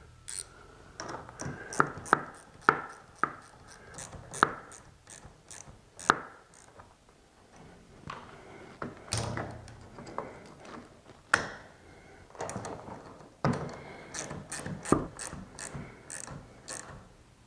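Irregular metallic clicks and clinks of a wrench turning and tightening the adjustment nut on a BAL Accu-Slide slide-out cable's threaded shaft, which is held by locking pliers.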